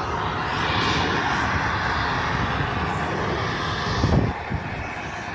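Jet airliner engine noise, a steady rushing roar that holds through, with a brief low thump of wind on the microphone about four seconds in.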